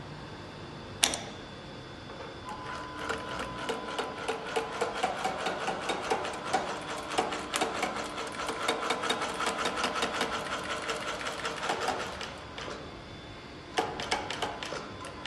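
Mekval-type shoe side-sole stitching machine: a sharp click, then the machine runs with a fast, even ticking over a steady hum for about ten seconds and stops. A few clicks follow near the end.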